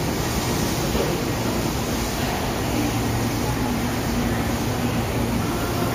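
Steady rumble and hum of a railway station platform, with a JR electric commuter train at the platform.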